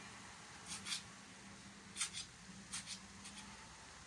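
Short soft hissing squeezes of a rubber bulb syringe used to suction a newborn puppy's nose and mouth, a few quick ones close together, over a steady low hum.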